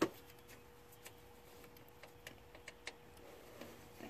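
Faint, scattered light clicks of handling, with a thin steady hum that stops about three seconds in.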